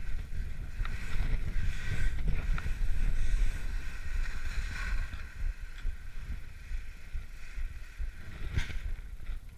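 Wind buffeting the camera's microphone, with the hiss of skis sliding over snow, stronger in the first half. A single sharp knock comes near the end.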